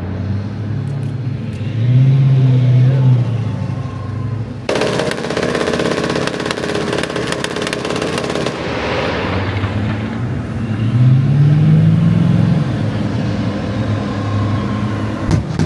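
Tracked armoured fighting vehicle (Bradley IFV) with its engine running and rising in pitch twice as it accelerates across the range. About five seconds in, a rapid burst of automatic gunfire lasts nearly four seconds, and a few single shots ring out near the end.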